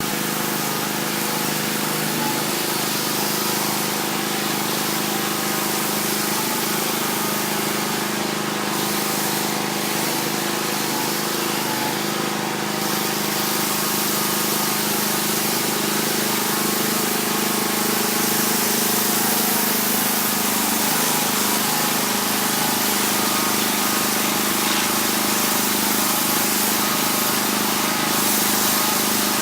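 Pressure washer running steadily: the engine-driven pump hums under the loud hiss of the water jet spraying onto the house.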